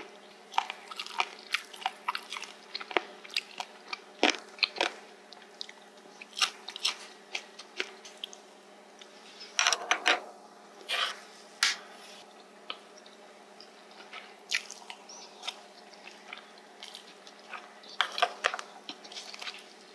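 Close-miked chewing of spicy stir-fried pork cartilage (odolppyeo), with irregular crunches as the gristle is bitten through. The crunching bunches up about halfway through and again near the end.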